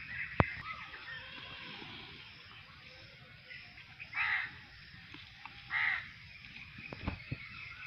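Crow cawing, two harsh calls about a second and a half apart, over a steady background of small birds chirping. A single sharp knock comes just after the start, and two lighter knocks come near the end.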